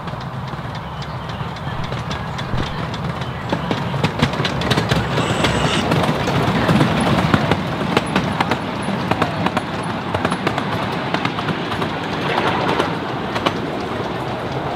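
A 7¼-inch gauge miniature railway train running past, its wheels clicking over the rail joints. It grows louder as it comes close, about halfway through.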